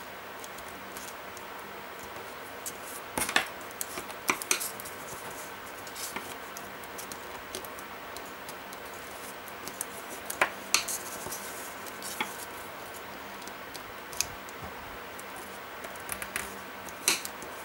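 Designer paper being folded by hand and its creases scraped flat with a bone folder: soft paper rustling and scraping with a few short, crisp crackles and taps spread a few seconds apart.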